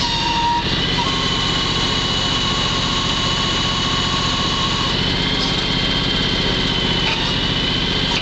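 John Deere X585 garden tractor's 25 hp liquid-cooled Kawasaki V-twin engine running steadily, with a thin high whine over it.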